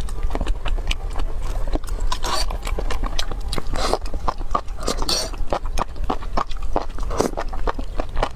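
Close-miked eating: strands of enoki mushroom in spicy red sauce slurped up and chewed, with wet smacking and clicking mouth noises. The loudest slurps come about two, four and five seconds in.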